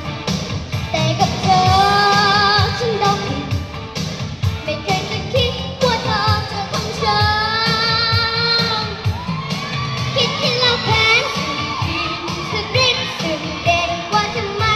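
A girl singing a pop song into a microphone over a recorded backing track with a steady, driving beat.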